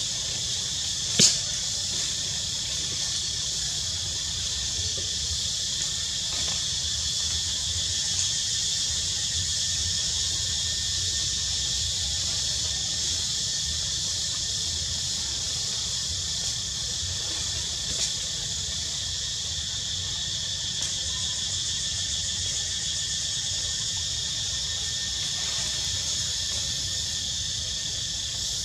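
Steady high-pitched drone of an insect chorus in forest trees, with one sharp click about a second in.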